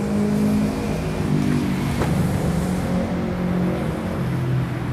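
Motor vehicle engines running, the low hum shifting in pitch a few times as they rev up and down.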